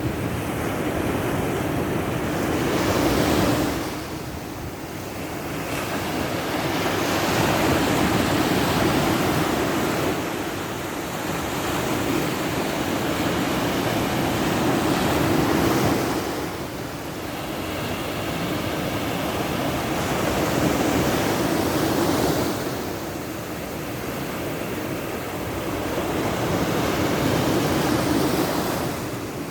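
Sea waves breaking and washing on a shore, the surf swelling and easing in slow surges every six or seven seconds, with some wind on the microphone.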